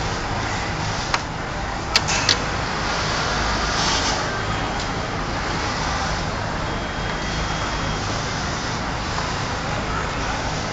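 Steady machine din of a garment workroom with industrial sewing machines running, with a few sharp clicks about one to two seconds in.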